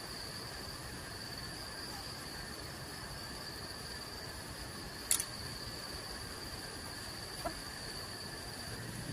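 Steady high-pitched insect chorus of the forest, a continuous shrill tone, with one sharp click about five seconds in and a fainter tick a couple of seconds later.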